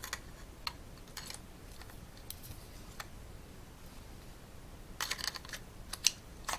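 Light clicks and small scrapes of a 2.5-inch hard drive being handled against a sheet-metal drive bracket as it is lined up to slide in, a scattered handful at first and a quicker cluster near the end.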